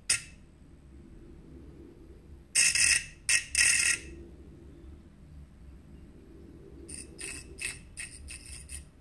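Fingers brushing against a small spinning fan driven by an old CD-ROM drive motor, making short scraping noises: a longer cluster about three seconds in and a quicker run of short scrapes near the end, over a faint steady low hum.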